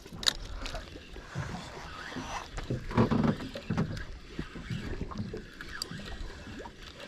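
Water lapping against the hull of a small boat, with scattered light knocks and handling clicks and a brief faint voice about three seconds in.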